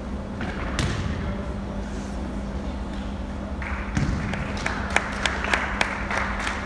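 A basketball bouncing on a sports-hall court over a steady hall background with a low hum. A run of sharp bounces, about three a second, comes in the second half.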